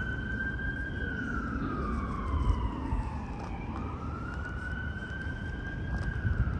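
Emergency vehicle siren in a slow wail, its pitch rising, holding, then falling and rising again, about one cycle every four seconds, over a low rumble.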